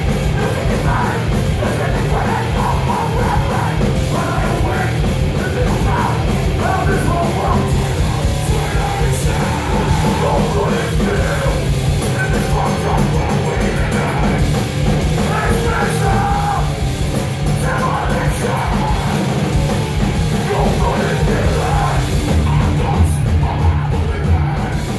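Hardcore punk band playing live through a club PA: heavily distorted electric guitars, bass and fast, pounding drums, with a singer yelling over them.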